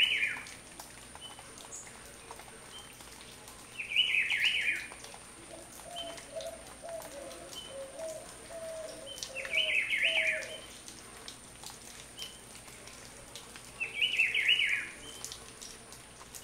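A bird singing a short, quick, warbling phrase four times, about every four to five seconds. Between about six and ten seconds in, a lower run of repeated short notes is heard.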